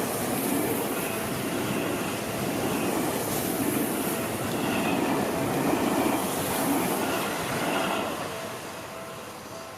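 A Seibu Ikebukuro Line train running past a level crossing: a steady rush of wheel and rail noise that fades away over the last couple of seconds as the train moves off.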